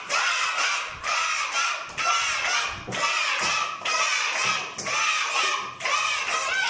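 A class of children shouting and cheering, in a chant that breaks about once a second.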